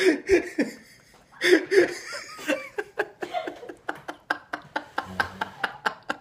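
Two men in a fit of laughter that breaks out suddenly and runs on in quick, repeated bursts of laughs without words.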